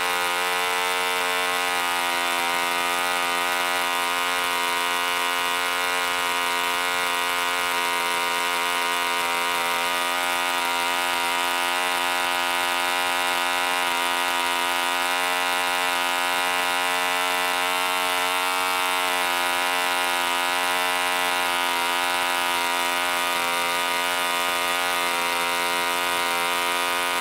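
1945 Rocket Victor .453 cu in spark-ignition two-stroke model engine running steadily on a 13x6 wooden propeller at just over 5,000 RPM.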